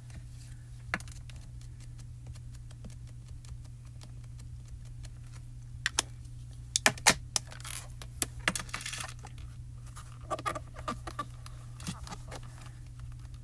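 Small plastic ink pads being handled: cases clicking and knocking, with a few sharper clicks about seven seconds in and lighter taps and scrapes after, over a steady low hum.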